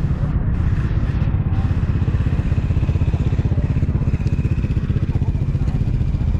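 A motorcycle engine running steadily at low speed close by, with road traffic going past.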